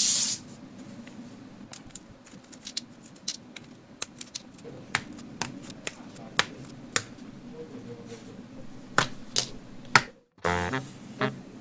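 Scattered light clicks and taps of small wooden model-kit parts being handled, over a faint steady hum.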